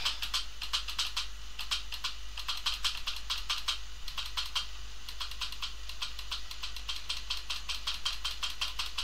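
Computer keyboard keys tapped rapidly and repeatedly, several clicks a second, paging through terminal output, over a steady low hum.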